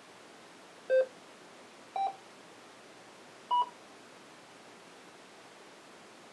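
Yaesu FTM-3200DR radio giving a short key beep for each digit keyed in on its microphone keypad: three beeps about a second apart, each at a different pitch and rising, as 1, 4 and 6 are entered.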